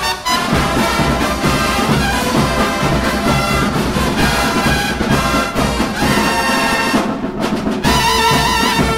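Drum and bugle corps horn line playing a loud brass passage over a steady beat. Near the end the music moves into a new phrase with a held note.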